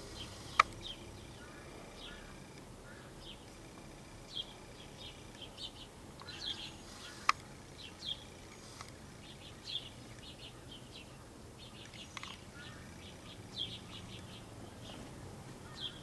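A flock of house sparrows chirping in short, scattered calls. Two sharp clicks stand out above them, one just after the start and one about halfway through.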